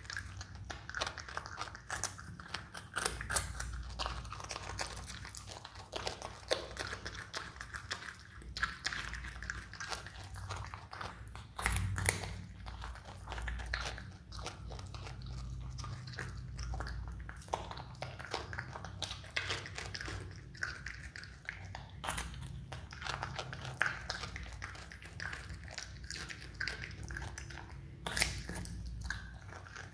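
Himalayan marmot gnawing a raw carrot: repeated irregular crunching bites and chewing, with a louder crack about twelve seconds in and another near the end.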